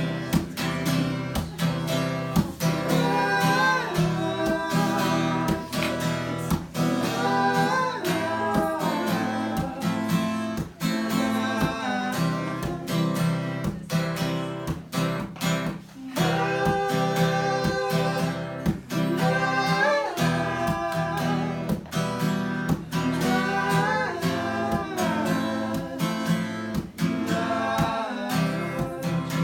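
Acoustic guitar strummed in a steady rhythm, with a voice singing the melody over it.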